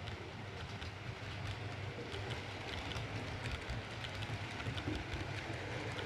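H0-scale model train running on the layout: a steady low motor hum with many small, irregular clicks of the wheels over the track.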